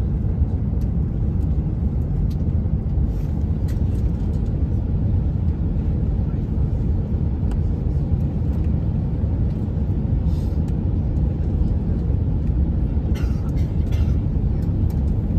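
Steady low rumble of Airbus A350 cabin noise on final approach: the engines and airflow heard from inside the passenger cabin, with a few faint clicks.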